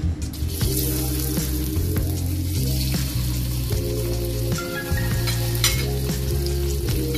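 Blocks of white tofu frying in hot oil in a wok, a steady sizzle that starts about half a second in as the tofu goes into the oil.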